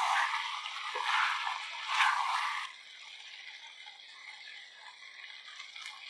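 Wooden spatula stirring thick, wet chicken masala in a metal kadai: a wet, squelching stir with surges about a second and two seconds in, stopping about two and a half seconds in. After that only a faint steady hiss from the pan remains.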